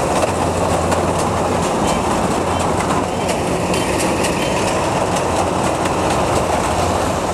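Kubota DC93 rice combine harvester running while it cuts standing rice: a steady diesel engine drone under a fast, dense mechanical clatter from the working header.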